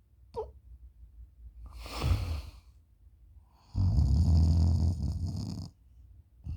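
A sleeping person snoring loudly with their mouth open. There is a short falling squeak near the start and a rasping breath about two seconds in, then a long, buzzing snore of about two seconds.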